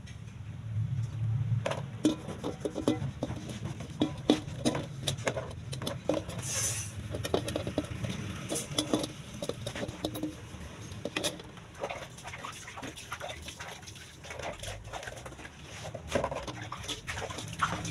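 Wet laundry being handled and hung on a clothesline: irregular light clicks, knocks and clatters, over a low steady rumble.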